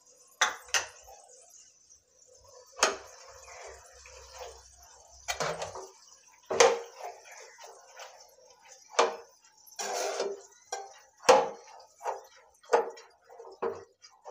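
A steel slotted spatula knocking and scraping against a nonstick pan while stirring green peas in water: a string of sharp clicks at uneven intervals, with wet sloshing, over a steady faint hiss.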